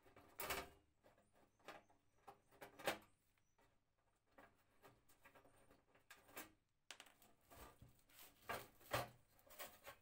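Scattered small clicks, taps and scrapes of a thin sheet-metal heater front panel being handled and worked loose from its metal casing. The loudest knocks come about half a second in, near three seconds and near nine seconds.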